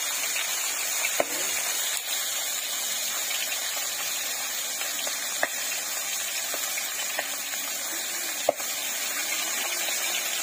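Marinated fish steaks sizzling in hot oil in an iron kadai: a steady frying hiss, broken by three sharp oil pops.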